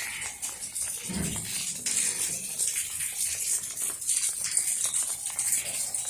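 Steady rain falling, a dense patter of many small drops, with a brief low thump about a second in.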